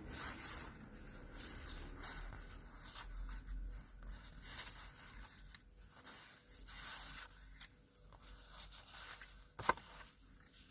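Stickers and sticker paper being handled, faint: a run of short peeling and scraping swishes, with one sharp tap near the end.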